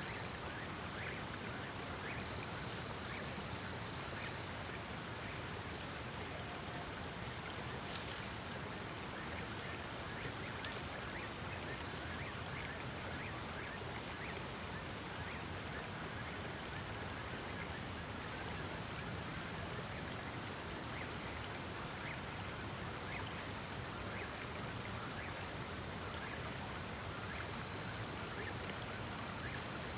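Steady rushing of a creek's running water, with a faint high steady tone that comes and goes and a single sharp click about ten seconds in.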